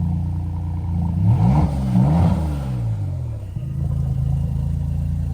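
Sports car engine idling, blipped up and down a few times between about one and three seconds in, then settling back to a steady idle.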